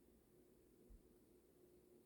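Near silence: faint room tone with a steady low hum and one soft, low thump about a second in.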